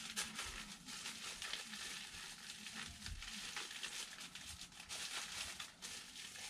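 Bubble wrap and a clear plastic bag crinkling as hands unwrap and handle them, a steady run of small crackles.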